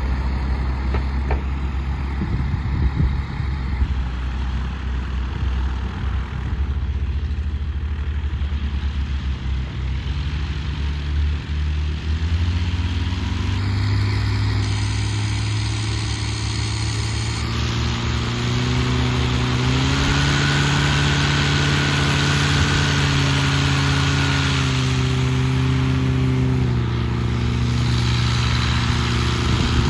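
Engine running steadily, its pitch stepping up about twelve seconds in and again around twenty seconds, then shifting near the end.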